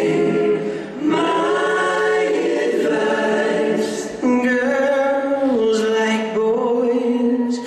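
Music: a song sung by several voices together, holding long notes that change pitch every second or two.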